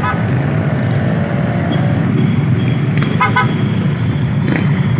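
Motorcycles and cars running in slow street traffic, a steady low engine rumble, with short horn toots: one quick toot at the start and a burst of several quick beeps about three seconds in.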